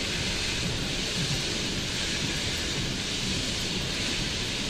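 Steady hiss of steam from a standing steam locomotive close by, with a rough low rumble underneath.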